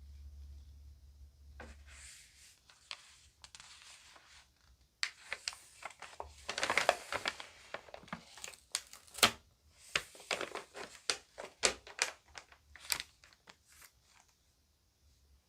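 Magazine pages being handled and turned: faint rustling at first, then about five seconds in a dense burst of paper crinkling with many sharp snaps of stiff pages, which dies away near the end.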